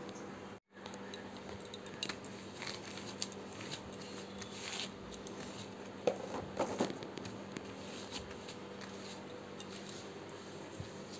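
Small household objects being picked up, moved and set down on a cloth-covered table during dusting: light scattered clicks and taps, with a few louder knocks about six to seven seconds in, over a steady low hum.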